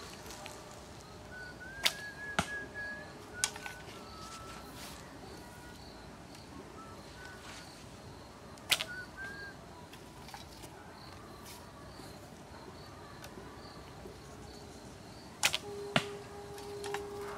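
Grozer Roman-style traditional recurve bow being shot three times. Each release is a sharp snap of the string, about 2 s in, about 9 s in and near the end. The first and last are each followed about half a second later by a second sharp knock.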